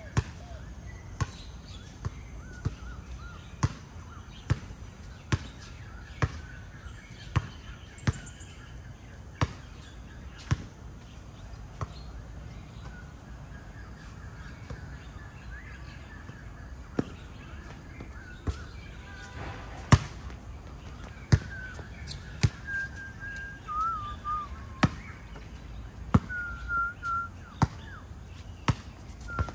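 A basketball bouncing on a court, sharp bounces coming about once a second. Short high squeaks join in during the second half.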